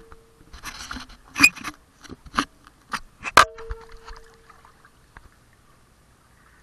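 Sharp knocks and taps on an action camera's waterproof housing with a little splashing of pool water. One knock, about three and a half seconds in, is followed by a ringing tone lasting about a second. The last couple of seconds are nearly quiet.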